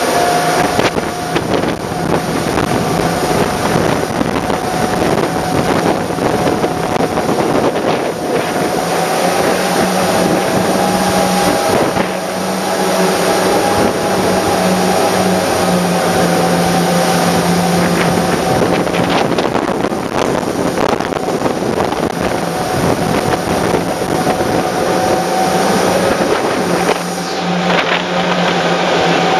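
The engines of a large 900 hp RIB running steadily at speed: an even drone over the rush of churning wake water, with wind buffeting the microphone.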